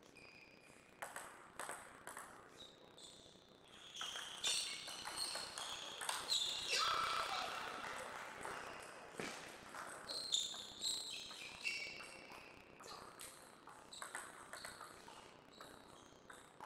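Table tennis ball being played in a rally, a string of short sharp ticks as it is struck by the paddles and bounces on the table.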